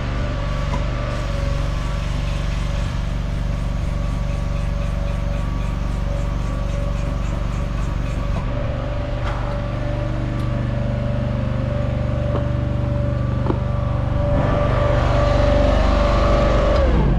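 Hydraulic boom crane's power unit running steadily, with a whine over a low drone, while the transmission housing is lifted and swung aside. It gets a little louder for the last few seconds, then its pitch falls as it winds down at the very end.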